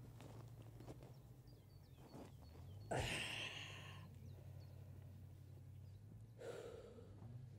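A man drops heavily onto the grass about three seconds in, a sudden thump with a loud breathy gasp that fades over about a second. Another heavy breath follows near the end, over a low steady hum.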